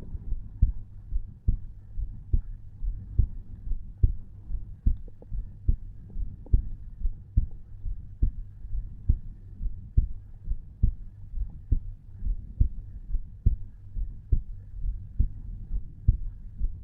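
A resting adult human heartbeat heard over the tricuspid valve: steady paired lub-dub thumps at about 70 beats a minute, over a low steady hum.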